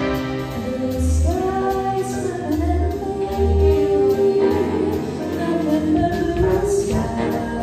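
Big band jazz ensemble playing with a female vocalist singing long held notes with vibrato, over steady low bass notes and drums.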